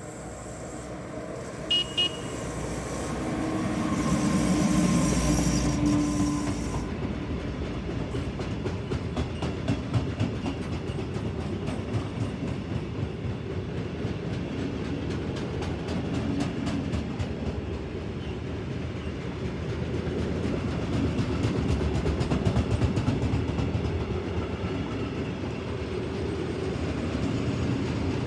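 DB Cargo class 189 electric locomotive gives two short horn toots about two seconds in, then passes loudly with a steady hum. A long string of boxcars follows, their wheels rumbling with repeated clicks over the rail joints.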